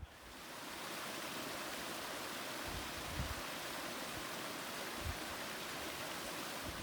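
Steady rushing noise of running water, like a stream or small waterfall, fading in over the first second. A few low thumps come about three and five seconds in.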